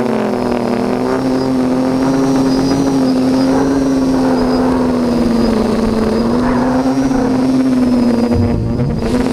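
Quadcopter's electric motors and propellers whining steadily in flight, the pitch wavering slightly as the throttle shifts.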